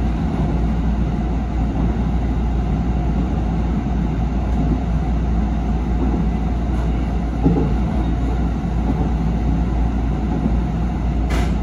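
JR 313 series electric multiple unit running along the track, heard inside the leading car: a steady low rumble of wheels and running gear, with a single knock about seven and a half seconds in.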